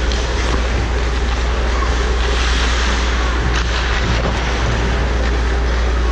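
Steady low hum and hiss of an indoor ice rink during a hockey game, with skates scraping the ice and a few faint stick clicks around the middle.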